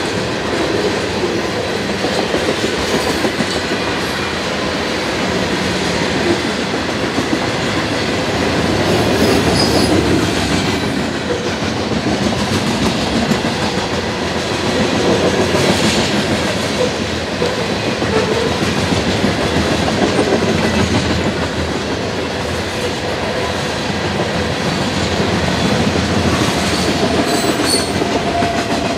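Cars of a mixed freight train (tank cars, covered hoppers and boxcars) rolling past close by at speed: a continuous, loud noise of steel wheels running on the rails that swells and eases slightly as the cars go by.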